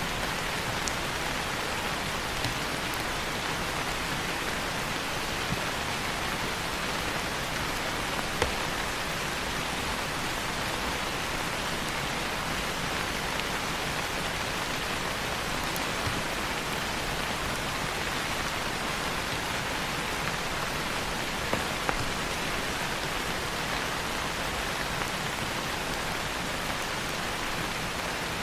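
Steady rain hiss with a few sharp crackles from a wood fire now and then, two of them close together near the end.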